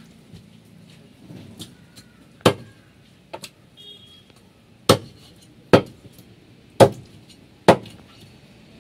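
Meat cleaver chopping raw chicken on a wooden block: a series of sharp single chops, the first about two and a half seconds in, then roughly one a second.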